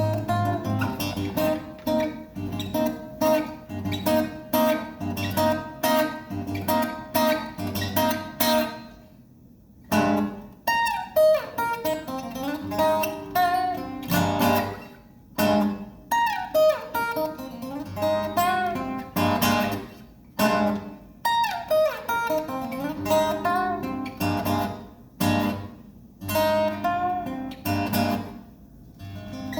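Solo acoustic guitar played live: a steady, rhythmic pattern of strummed chords, a brief break about nine seconds in, then phrases of picked notes bent and slid up and down in pitch between chord hits.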